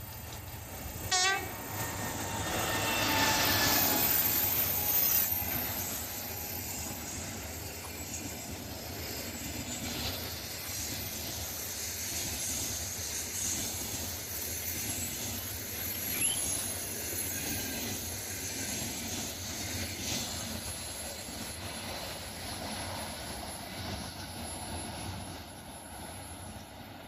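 ЭП20 electric locomotive with a passenger train passing at speed: a short horn blast about a second in, then a rushing pass-by loudest a few seconds in. The coaches keep rolling past, slowly easing off.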